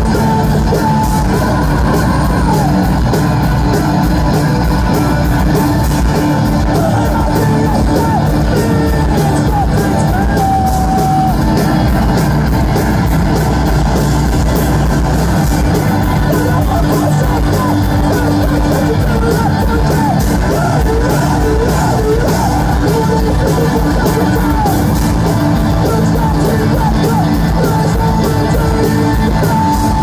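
Post-hardcore band playing loud live, with distorted guitars, rapid drumming and shouted vocals.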